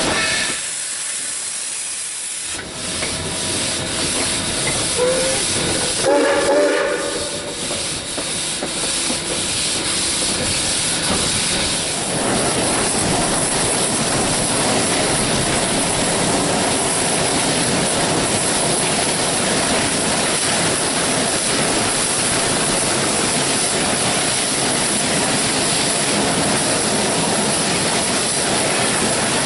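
S.P.L.CO. #28 steam locomotive under way, heard from the cab: a steady loud hiss of steam mixed with running and rail noise. A brief pitched sound comes about six seconds in.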